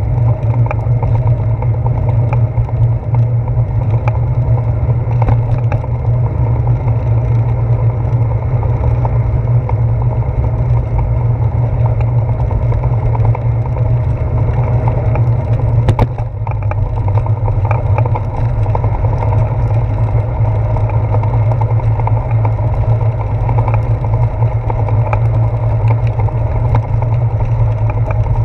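Steady low rumble from a handlebar-mounted GoPro Hero 4 in its housing as a bicycle rolls over wet pavement, made up of road vibration and wind noise. Light clicks and rattles come through, and there is one sharp knock about halfway.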